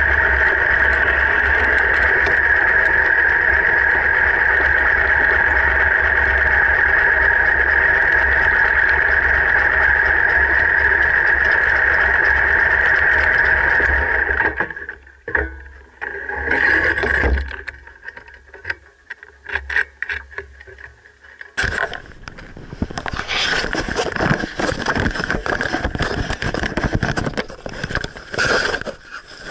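Harley-Davidson V-twin motorcycle engine idling steadily, then shut off about fifteen seconds in. After that come rustling, scraping and knocks as the action camera is handled and pulled off its mount.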